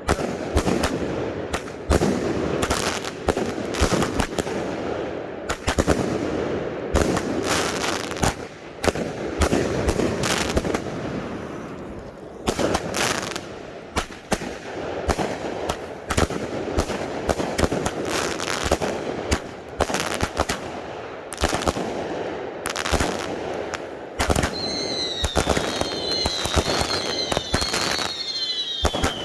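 Consumer firework cakes firing in rapid succession, a dense run of shots and bursting reports. Near the end several short whistles overlap, each falling slightly in pitch.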